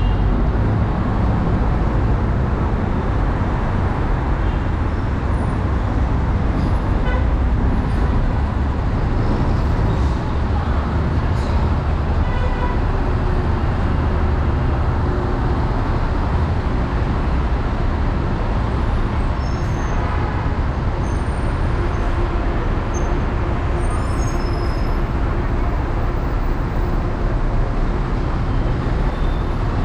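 Steady low rumble of dense city traffic, with cars and city buses idling and moving close by. A few faint, short high beeps sound through it now and then.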